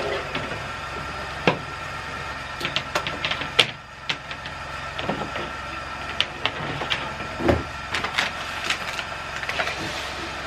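Scattered light clicks and knocks of small objects being handled, over a steady low hum.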